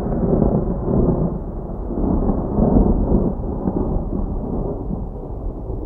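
Low rolling rumble, like thunder, that swells a few times and slowly fades away.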